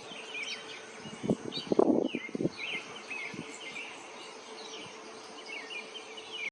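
Hummingbirds at a feeder: repeated high, squeaky chittering chirps, with a few brief low whirs of wing hum, loudest about 1.3 to 2.5 seconds in.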